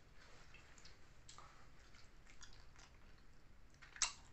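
Faint chewing and mouth sounds of a person eating mie ayam (chicken noodles), with one sharper click about four seconds in.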